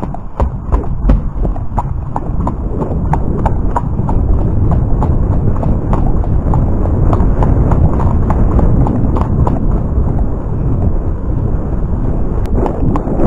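Thoroughbred horse's hooves striking the path in a steady clip-clop rhythm, with rushing wind noise on the microphone growing louder as the horse picks up speed.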